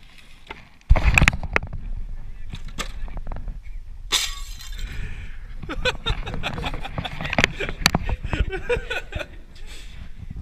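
Old wooden window sash with its glass pane being wrenched out of a weathered frame: a loud knock about a second in, then a run of knocks, cracks and glass clinks as the wood gives way.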